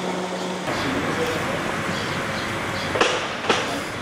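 Street background noise: a steady hum of traffic and engines, with two short sharp knocks about three seconds in.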